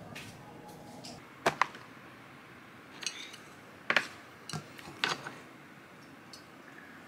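Several sharp clinks and knocks, spaced irregularly, of dishes and plastic food containers being set down and handled on a tray.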